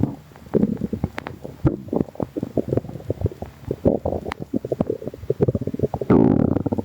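A human stomach rumbling and gurgling in irregular bubbling, crackling bursts, with a louder, longer gurgle about six seconds in.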